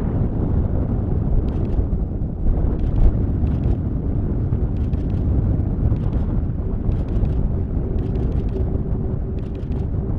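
Airbus A400M Atlas's four turboprop engines and propellers, a steady low rumble as the aircraft flies low along the valley; a faint steady hum joins in about halfway through.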